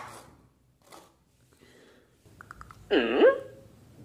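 A sharp click, then faint taps, then a colorpoint cat gives one short meow about three seconds in, its pitch dipping and rising again.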